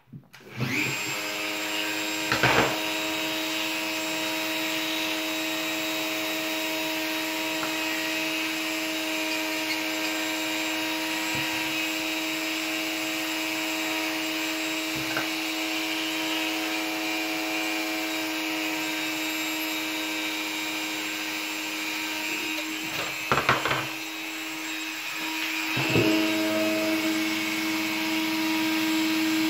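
Hand-held electric rotary tool running steadily, spinning a lock pin in its collet while wafers are cut off the pin. A few sharp clicks of the cutting break in, one early and two near the end, where the motor's tone shifts.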